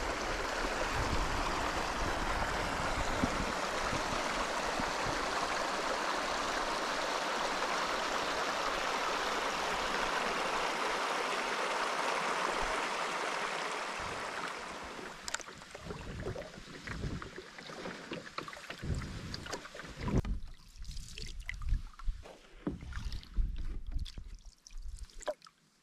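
Water rushing through a gap in a beaver dam, a steady pouring that fades out about fourteen seconds in. After that come quieter, scattered paddling sounds: paddle strokes and drips, with occasional knocks against a wooden canoe.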